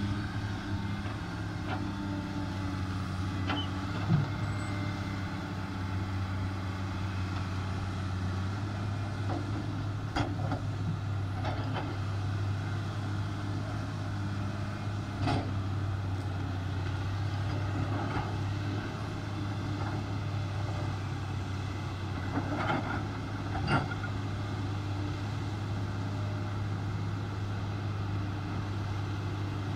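Komatsu PC300 hydraulic excavator's diesel engine running steadily while the machine works broken quartzite rock. A few separate sharp knocks break through the drone.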